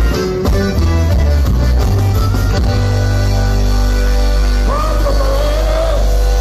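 Live Tejano band music for dancing: bass and guitar playing a rhythmic beat, then a little under three seconds in the band holds one long chord. Near the end a voice glides up and down over the held chord.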